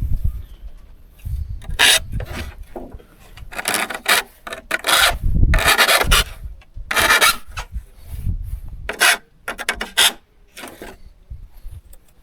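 Hand file strokes rasping across the steel teeth of a hand saw, sharpening them by hand. There are around ten separate strokes, irregularly spaced, some short and some lasting most of a second.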